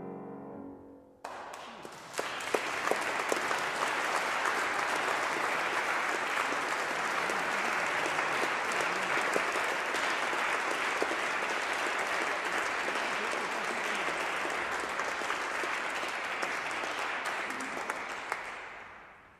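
The final chord of a Fazioli grand piano dies away, then audience applause starts about a second in. The clapping holds steady and fades out near the end.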